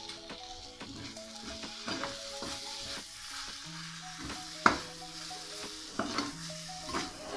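A metal spoon stirring and scraping shredded chicken filling in a steel pan over a low flame, with a light sizzle underneath. The spoon clicks and scrapes against the pan over and over, with one sharp knock about halfway through.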